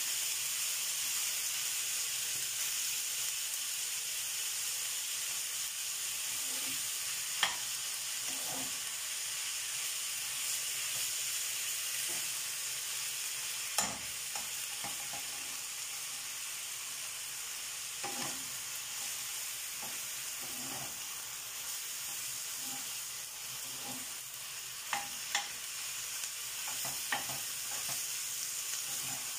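Minced beef and onions sizzling steadily in a frying pan as they brown, stirred with a spatula. A few sharp knocks of the utensils on the pan stand out, the loudest about halfway through.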